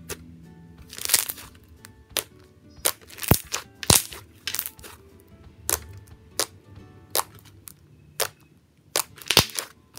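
Slime being pressed and poked, giving sharp crackling pops about a dozen times at irregular intervals, over faint background music.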